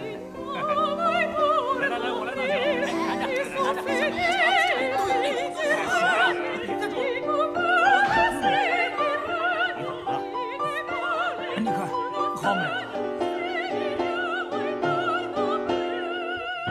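Background music: a high voice singing in an operatic style with wide vibrato, over sustained accompaniment.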